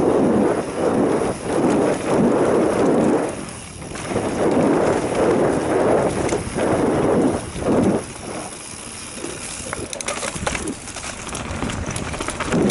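Wind buffeting the microphone of a camera riding a mountain bike down a dirt singletrack, in loud surging gusts, with the rumble and rattle of the bike over the trail. In the last few seconds the wind eases and quick clicks and rattles of the bike on the stony dirt come through.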